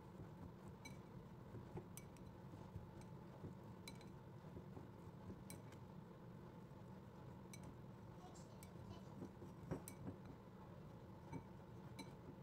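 Plastic rice paddle scraping and tapping a ceramic bowl as cooked rice is mixed for sushi, giving quiet, irregular clicks and clinks over a low room hum.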